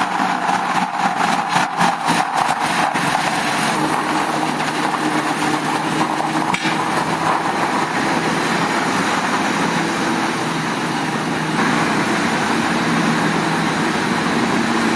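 Heavy truck's diesel engine running steadily, with a run of clicks in the first few seconds.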